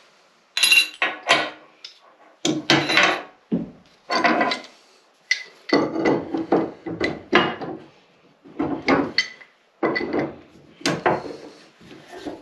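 Irregular knocking, clunking and scraping of hand work with tools, in short bursts a second or so apart.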